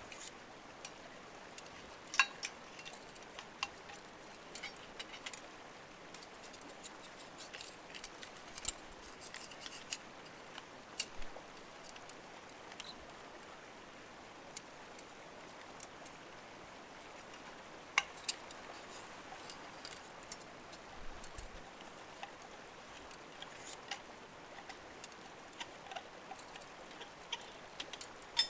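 Scattered small clicks, taps and rustles of hands handling small objects, over a faint steady hiss; two sharper clicks stand out, about two seconds in and a little past the middle.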